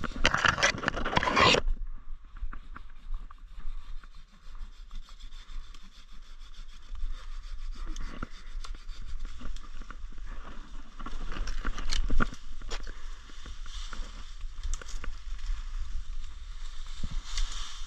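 Brush and leaves rustling and scraping as saplings and branches are cut with hand loppers, with sharp snips and snaps now and then, most of them about eleven to twelve seconds in. A loud rustle of brush fills the first second and a half.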